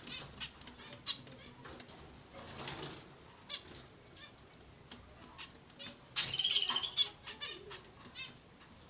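Zebra finches calling: many short chirps, with a loud burst of calls lasting under a second about six seconds in.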